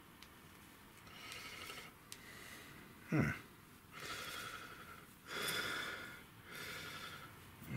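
A person breathing in short, repeated breaths of about a second each while working with their hands. About three seconds in there is one brief, loud sound that falls steeply in pitch.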